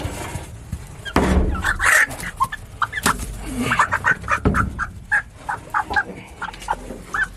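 Hens clucking in a quick run of short calls while one is caught by hand, with a few loud scuffles of handling and litter in between.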